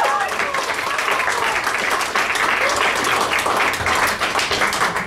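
Audience applauding steadily, a dense patter of clapping, with a voice calling out near the start.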